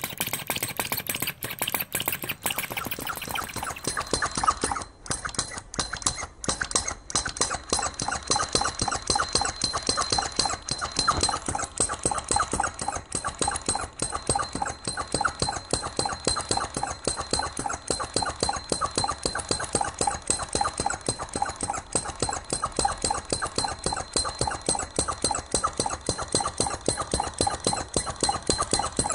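SH-02 flame-licker (vacuum) model engine running fast, with a rapid, even chuffing and clatter as it gulps the flame into its cylinder on each stroke. It falters briefly a few times about five to seven seconds in, then runs steadily.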